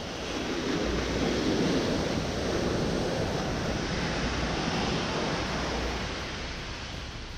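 Ocean surf breaking and washing up the sand, a steady rushing that swells about a second in and eases off near the end.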